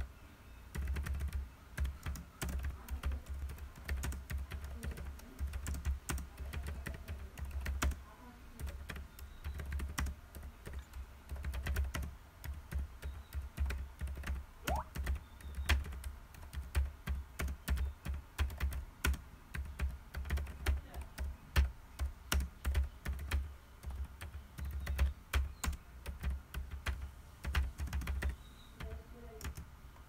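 Typing on a computer keyboard: quick, irregular key clicks with low thuds beneath them, in bursts and short pauses. The typing stops near the end.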